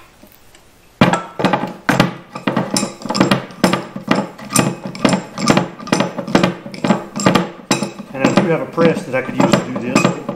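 Background music with a steady beat, cutting in suddenly about a second in and joined by a singing voice, after a few faint metal clinks.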